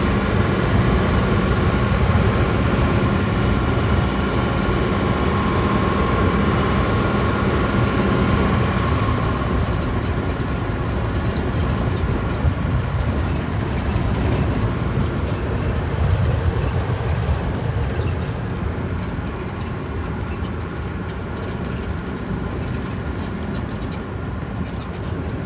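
1947 Hudson pickup running at about 40 to 45 mph, heard from inside the cab: a steady engine and drivetrain drone with road and wind noise. A faint steady whine fades out about nine seconds in, and the sound eases off a little near the end.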